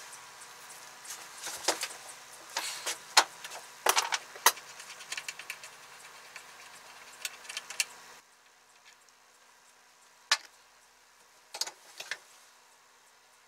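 Sharp metallic clicks and clinks of a strap wrench and pliers working on the steel drive pulley of a Makita 1800 planer's cutter drum as the pulley is loosened and lifted off, followed by a few sparser clicks as the parts are handled.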